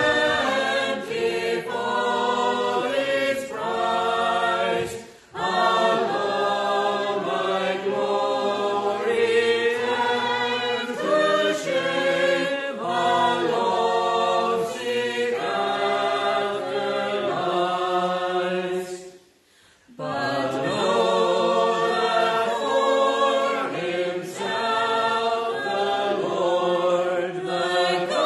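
Congregation singing a metrical psalm unaccompanied, in slow held notes line by line. The singing breaks off briefly twice, the longer gap about two-thirds through, between lines.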